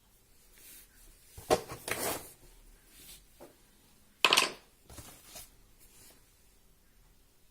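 Handling noises: a few clattering knocks and scrapes, with a cluster about one and a half seconds in and a sharp louder one a little past four seconds.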